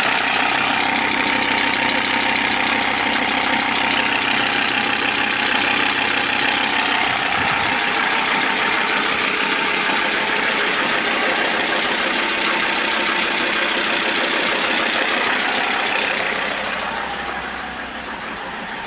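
Audi A6 C4 2.5 TDI five-cylinder diesel idling, with an intermittent ticking that the owner cannot place between a hydraulic lifter, the injection equipment and the injection pump. The engine noise grows quieter near the end.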